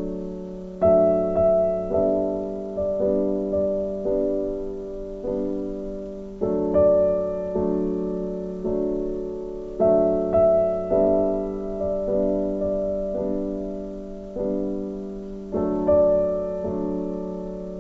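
Background piano music: slow, gentle chords struck one after another, each dying away before the next.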